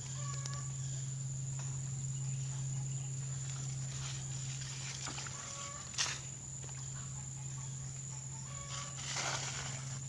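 Outdoor ambience: a steady high insect drone over a low steady hum, with three short pitched calls spread through, a sharp click about six seconds in and a brief hiss near the end.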